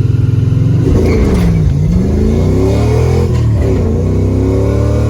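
Car engine pulling hard under acceleration. Its pitch drops and then climbs again twice, as with gear changes or throttle lifts.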